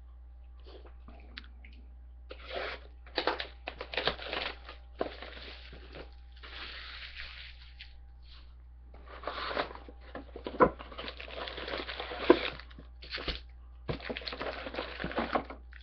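Plastic wrap crinkling and tearing and cardboard rustling as a sealed box of trading-card packs is opened and emptied, in irregular bursts with a few sharp clicks. A faint steady low hum runs underneath.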